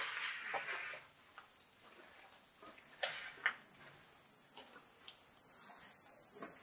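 Cicadas singing in a steady, high-pitched drone, with a few faint knocks underneath.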